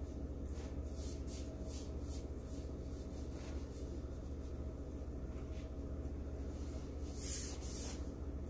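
Gloved hand rubbing wet white base paint across a stretched canvas: a run of short, soft swishing strokes, with a longer, louder one about seven seconds in, over a steady low hum.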